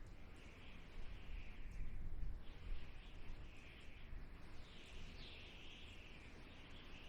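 Desert wind blowing in gusts: a low rumble under a hiss that swells and fades every second or so.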